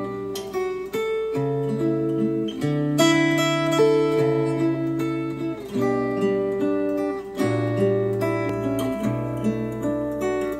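Recorded acoustic guitar music, plucked and strummed chords, played back through hi-fi bookshelf speakers. The playback switches from the Monitor Audio Bronze 100 to the Polk Audio Reserve R100 partway through.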